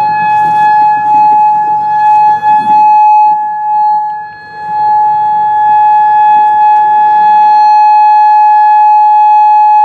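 Outdoor warning siren sounding a loud, steady single-pitch tone that does not rise or fall. It dips briefly about four seconds in, then comes back at full level.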